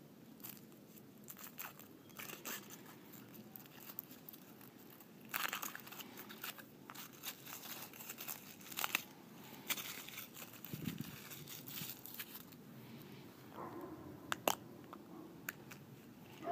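Thin foil wrapper crinkling and tearing as it is peeled off a chocolate surprise egg, in a run of small crackles. A sharp snap near the end as the chocolate shell is split open.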